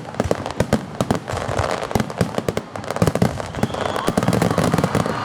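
Aerial fireworks exploding in quick succession: a dense run of sharp bangs and crackles, several a second.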